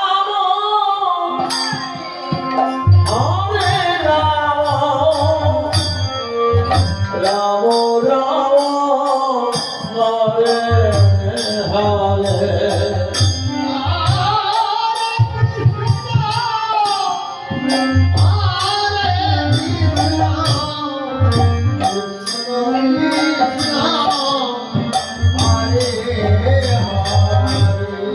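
A song with a singing voice over a heavy, pulsing bass beat and jingling percussion, played loud.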